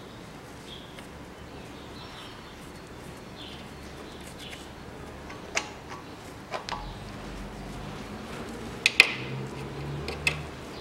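A few sharp metallic clicks and clinks from an open-end wrench and the loosened timing-belt tensioner roller being handled. The loudest comes about nine seconds in.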